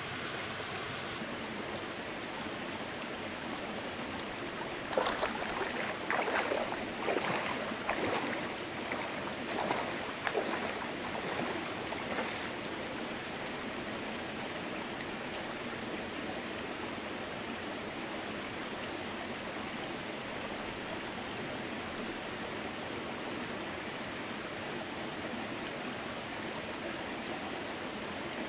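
A stream running steadily. A series of irregular, louder sharp sounds rises above it between about five and twelve seconds in.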